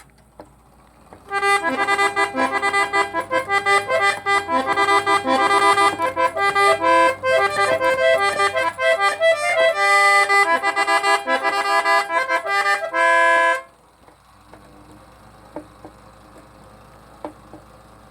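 Emilian Wehrle 9-note trumpeter clock mechanism playing a melody on its bellows-blown reed trumpets, its leathers, valves and bellows freshly restored. The tune runs for about twelve seconds and stops suddenly, followed by a few faint mechanical clicks.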